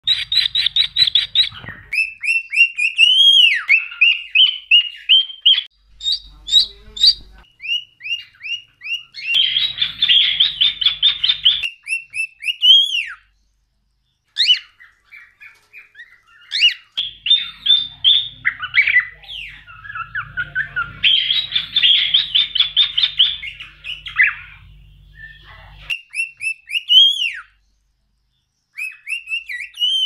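Cockatiels whistling: series of short whistled notes and whistled phrases that rise and fall in pitch, broken by stretches of fast chattering warble. The sound stops and starts abruptly several times, with short silent gaps between bursts.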